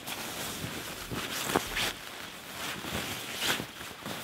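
Nylon shell of a down sleeping bag rustling and swishing as it is handled and pushed into place. The swishes are irregular, with the loudest about one and a half seconds in and again about three and a half seconds in.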